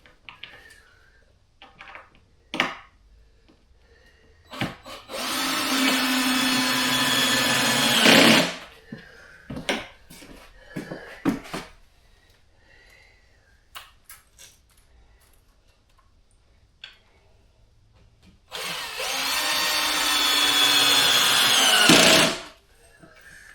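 Drill-driver driving two screws through floorboards into the joists to stop the floor squeaking, each run lasting about three and a half seconds, with the motor slowing as the screw seats. Short clicks and knocks of handling come between the runs.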